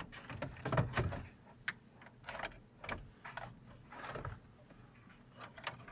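Irregular light clicks, taps and rustling from hands handling the radio's wiring and parts, searching for a ground point.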